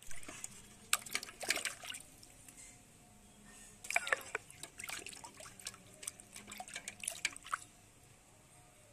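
Water splashing and dripping in a steel pot as potatoes are washed by hand, in irregular bursts that die down near the end.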